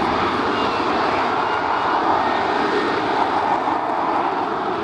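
Lockheed Martin F-35B's F135 jet engine and shaft-driven lift fan running at high power in vertical-lift mode, a loud, steady rush of jet noise.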